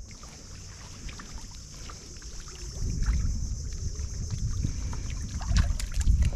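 Water sloshing and dripping as a large mesh prawn trap net is hauled by hand over the side of a small boat, over a steady high hiss. The low rumbling grows louder a few seconds in, and a quick run of sharp knocks and splashes comes near the end.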